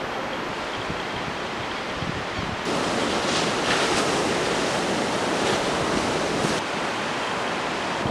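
Wind on the microphone over the steady wash of sea surf. It gets louder suddenly a little under three seconds in and eases off again near the end.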